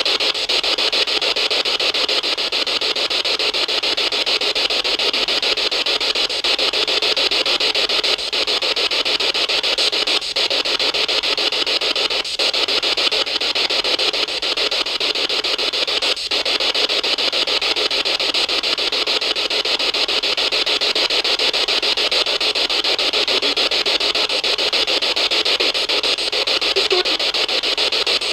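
A steady, loud hiss like static, even throughout, with no pitch to it.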